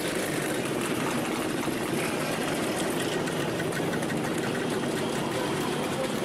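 Several vintage Czech two-stroke motorcycles and a ČZ Čezeta scooter riding slowly past at low revs, their engines blending into one steady mixed engine sound.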